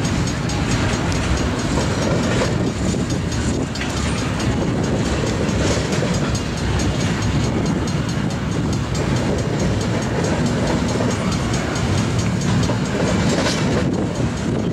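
Union Pacific GE ET44AC Tier 4 diesel-electric locomotive passing at slow speed in a double-stack container train: its diesel engine running under a steady low rumble, with wheels rolling and clicking over the rails.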